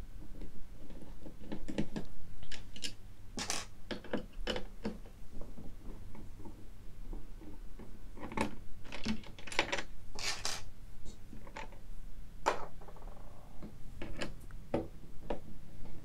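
Scattered small clicks and taps of a screwdriver backing out the screws of the CPU-cooler retention bracket on an AM4 motherboard, with the loosened screws and bracket parts set down on a table.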